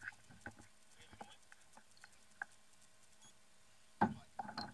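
Scattered light clicks and taps, then a short cluster of louder knocks about four seconds in, from handling a large corvina on a kayak.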